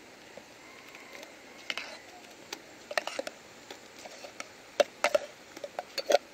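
Metal spoon tapping and scraping a steel bowl, with clam shells clicking, as thick ground coconut paste is dropped onto cooked clams in a wide metal pan. Mostly quiet for the first second and a half, then a run of sharp clicks and taps that grows denser toward the end.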